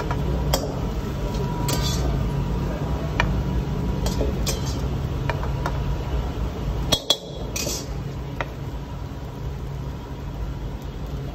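Steel ladle scraping and clinking against a steel wok and platter as fried rice is scooped out, a scattered series of knocks with a louder clatter about seven seconds in, over a steady low rumble.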